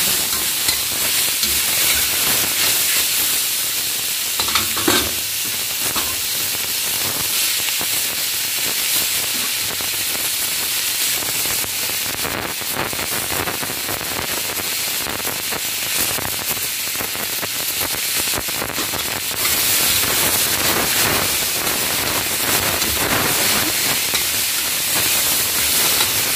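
Sliced mustard green stems and mushrooms sizzling as they are stir-fried in a stainless-steel wok, with a metal spatula scraping and turning them against the pan. The sizzle gets louder about two-thirds of the way through.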